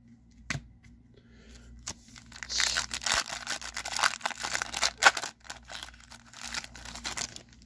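Foil wrapper of a 2010 Topps Update baseball card pack being torn open and crinkled by hand, a dense crackling and tearing noise from about two and a half seconds in, with a single tap about half a second in.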